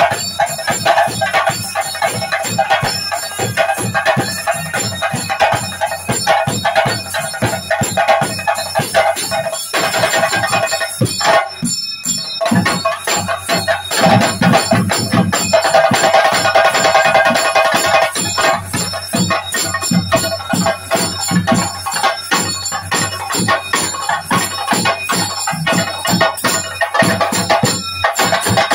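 Kerala ritual percussion for a theyyam: fast, continuous chenda drumming with ringing metal cymbals, swelling a little louder around the middle.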